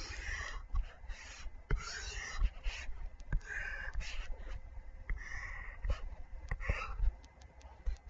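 Stylus tapping and scratching on a touchscreen as lines are drawn: irregular sharp taps mixed with short scraping pen strokes, picked up by the microphone as an annoying tapping.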